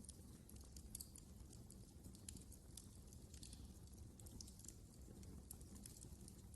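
Wood fire crackling quietly, with frequent irregular small snaps and pops over a low, steady rumble of burning.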